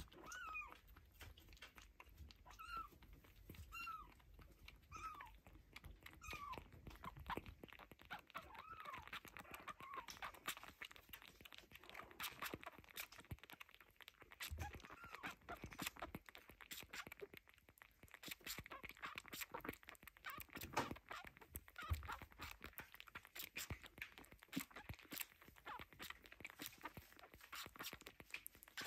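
Faint, high-pitched mewing of baby kittens, short calls about once a second, giving way after about ten seconds to rapid wet clicking and smacking as the kittens suckle from a feeding bottle.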